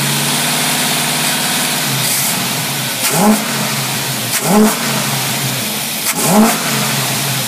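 V8 engine idling on a Carter AFB four-barrel carburetor, blipped three times about a second and a half apart, each rev rising quickly and dropping straight back to a steady idle. The clean throttle response fits the verdict that there is nothing wrong with the carburetor.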